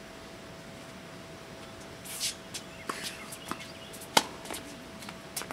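A few sharp knocks of a tennis ball and shoes on a hard court, starting about two seconds in, the loudest about four seconds in, over a faint steady tone.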